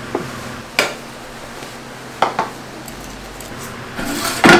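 Kitchenware clinking and knocking: earthenware bowls and a steel ladle against a metal soup-pot lid, a few separate knocks, with a short scrape just before the loudest knock near the end.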